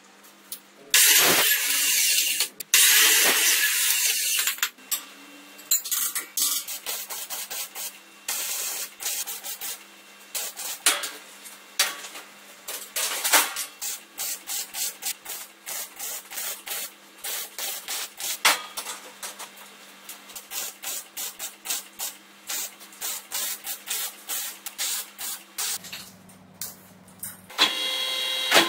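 Arc welding on a metal tube frame: the arc crackles in many short, irregular bursts as joints are tack-welded, over a steady low electrical hum. Near the start come two loud hissing blasts, and near the end a machine motor starts up with a steady whine.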